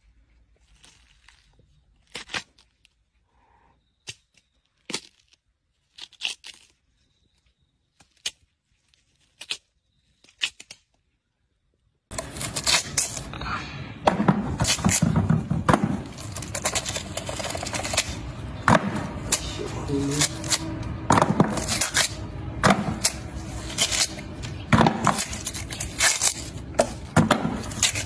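Small watermelons' crisp rind cracking and being torn open by hand. First come a few sharp, separate snaps. About twelve seconds in, a much louder, steady run of crunching, cracking and tearing starts as the rind is split and peeled away from the juicy flesh.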